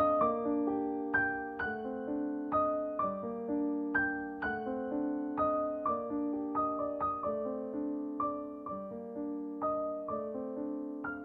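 Background piano music: soft notes struck at an even, unhurried pace, each ringing and fading into the next.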